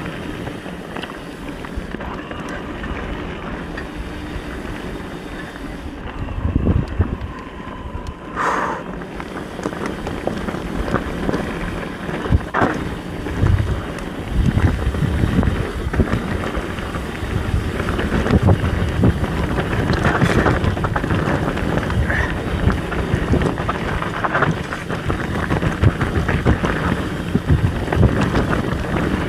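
Mountain bike riding fast downhill on a dirt trail: wind rushing over the action camera's microphone, with tyres rolling over rough ground and the bike knocking and rattling over bumps.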